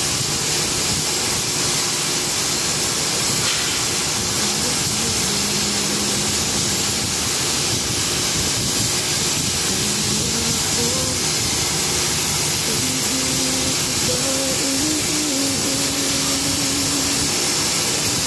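Steady loud hiss of a multi-torch oxy-fuel flame-cutting machine, its torches burning through steel plate.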